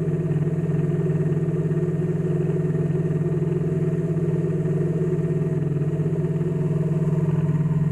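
Steady mechanical hum at a constant low pitch, like an engine or motor running evenly, with no change throughout.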